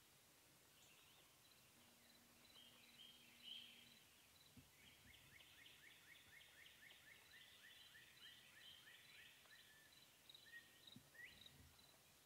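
Faint woodland songbird calls: scattered high chirps, and from about five seconds in a quick run of short, thin chirps at about three a second for some five seconds. Two soft low thumps come in the middle and near the end.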